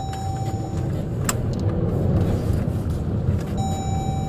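Low, steady engine and road rumble of a police car creeping along at walking pace. A steady high tone sounds at the start and again near the end, with a single sharp click about a second in.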